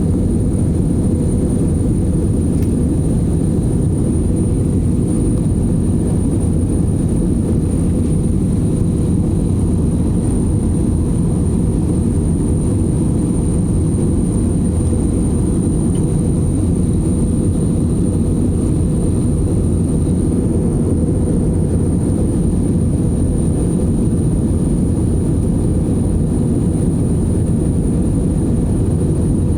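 Airliner cabin noise in flight: a steady low rush of engines and airflow, with a faint, thin, steady high whine over it.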